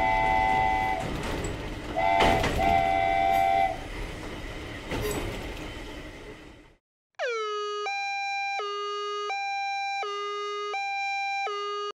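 Animated train sound effect: a rumbling train with two chord-like horn blasts, the second about two seconds in, the rumble fading away. After a brief gap, a two-tone electronic sound steps between a low and a high pitch about every 0.7 seconds.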